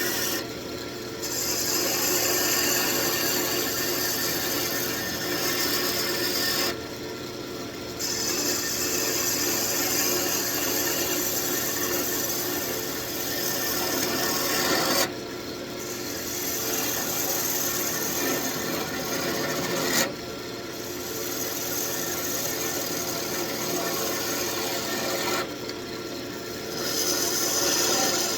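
Wood lathe running while a hand-held turning tool cuts the spinning wood of an old table leg, a continuous scraping, shaving noise in long passes. It drops away briefly four or five times as the tool is lifted off the work, leaving the lathe's steady hum.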